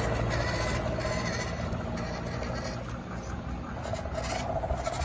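Sound V3 RC sound module playing a simulated petrol engine through its small speaker, running steadily at low throttle.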